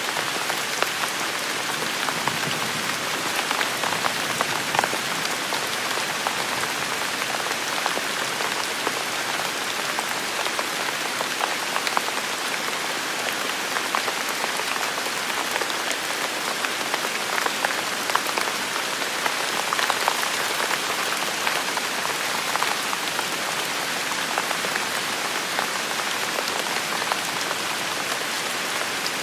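Steady rain falling on a hard surface, a dense even hiss sprinkled with individual drop ticks.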